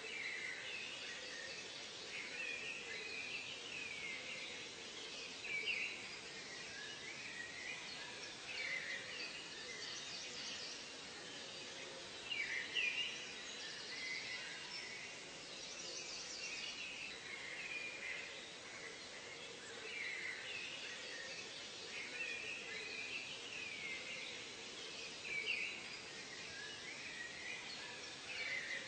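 Birds calling and chirping over a steady background hiss, with short, quickly gliding calls every second or two and a few louder ones standing out.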